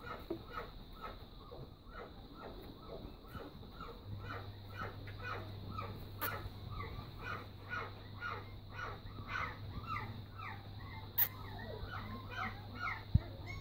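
Five-week-old puppies giving a long run of short, high yelps, about two or three a second. A steady low hum comes in about four seconds in.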